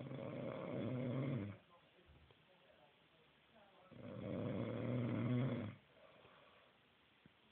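A man snoring: two snores about four seconds apart, each lasting under two seconds.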